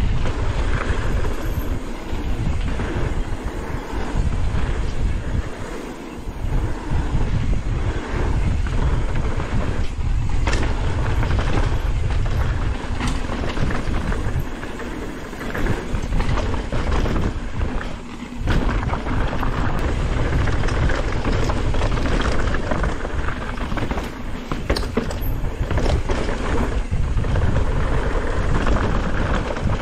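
Mountain bike ridden fast down a dirt downhill trail: a steady heavy rumble of wind on the microphone over the sound of the tyres and rattling bike, with a few sharp knocks as it hits bumps and landings.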